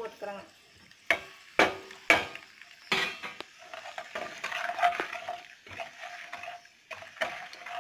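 Metal spatula stirring turmeric powder into the hot-oil tempering of dals, curry leaves and dried chilli in a nonstick frying pan. It knocks sharply against the pan several times and scrapes across it in the middle, over a light sizzle.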